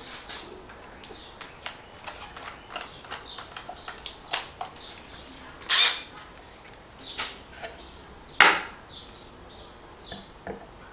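Tools and small parts being handled: a string of light clicks and knocks, with two short, louder rasping bursts about six and eight and a half seconds in, as a drill is readied to bore through a wooden box.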